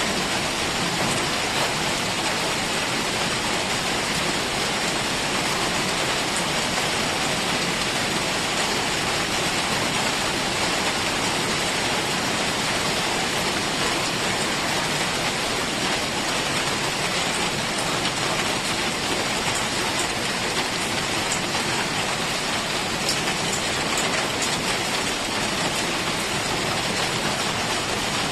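Heavy rain falling steadily, a continuous even hiss with scattered drop ticks.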